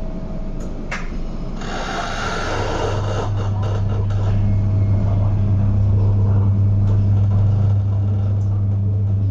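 Metro-Cammell MLR electric train starting away from a station, heard from inside the car: a knock and a short hiss of air about a second in, then a steady low hum that builds as the train pulls away.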